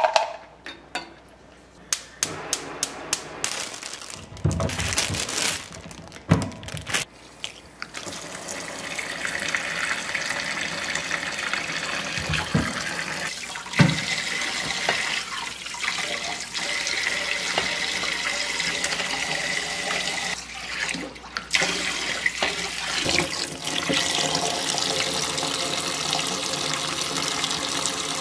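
Kitchen tap running into a sink while vegetables are rinsed by hand in a basin of water. The water makes a steady splashing rush from about eight seconds in, and before that there is a string of small clicks and knocks.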